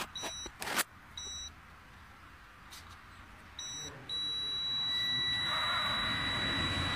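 Fishing Ferrari KGN 1500 electric twin-motor fishing reel: a few short electronic beeps from its controls, then about four seconds in its motor starts and runs with a steady high whine, growing fuller a second later as it winds in line.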